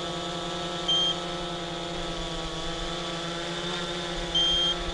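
AEE AP9 quadcopter controller beeping a high tone, a short beep about a second in and a longer one near the end, over the steady hum of the hovering drone's motors and propellers. The beeping is a warning that the pilot is pretty sure signals low battery voltage.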